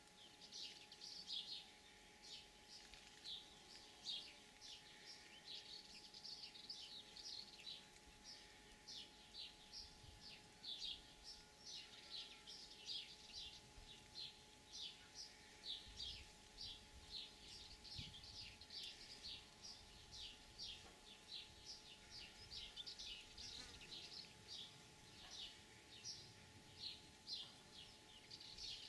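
Faint, continuous series of short high-pitched chirps, a few each second, from small wildlife in the woodland undergrowth, over a faint steady hum.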